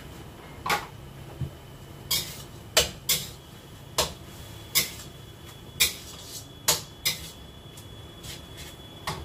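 Spatula clanking and scraping against a wok during stir-frying, a dozen or so irregular knocks.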